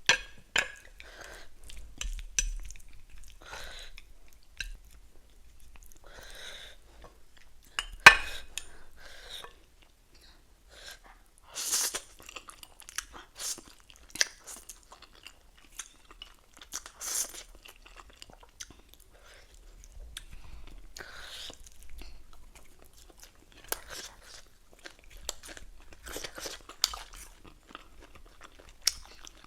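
A person eating close to the microphone: irregular chewing and crunching of ramen, pork and crisp lettuce, with short mouth clicks. One sharp click stands out about eight seconds in.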